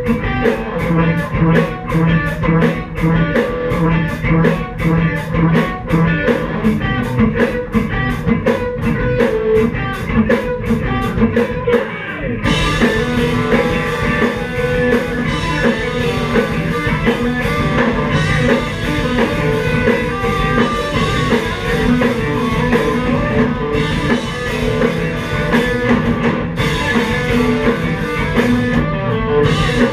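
Live rock band playing: electric guitar and drum kit. A tight, evenly pulsed part for about the first twelve seconds, then the full band comes in with crashing cymbals.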